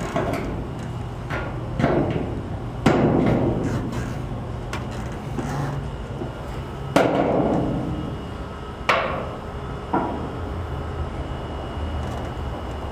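A body hammer striking a dented metal carport roof panel, about five separate blows a second or two apart, each with a short ring, while the dents are beaten out.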